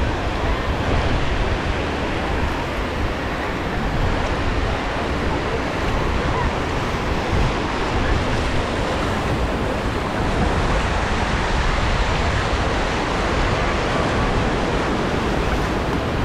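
Surf washing steadily onto a sandy beach, mixed with the indistinct chatter of a beach crowd, and wind rumbling on the microphone.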